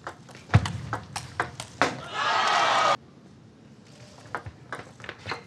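Table tennis ball clicking off bats and table in a fast rally, about three hits a second, with a heavy thump about half a second in. A loud shout of about a second follows and cuts off suddenly, and after a short pause the clicks of the ball start again.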